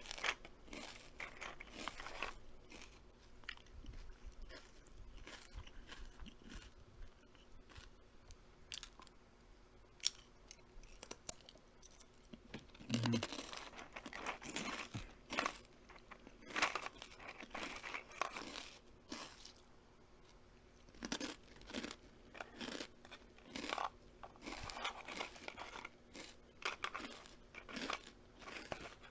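Close-up crunchy chewing and biting, irregular clusters of sharp crunches with short pauses between.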